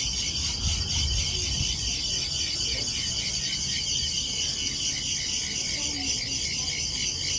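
Golden Bell cricket (Natula matsuurai) singing a continuous, high-pitched, rapidly pulsing trill over a low background rumble.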